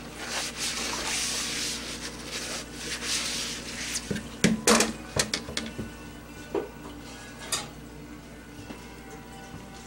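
A bowl being scrubbed with a sponge in a sink of soapy water, with a steady splashy hiss, then a cluster of sharp clunks about halfway through and a couple more later as the bowl is lifted out and set down in the empty stainless steel sink.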